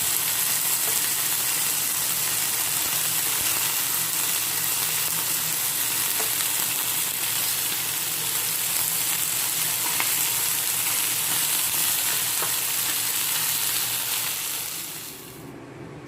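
Food frying in hot oil: a steady sizzle with a few faint pops, fading out near the end.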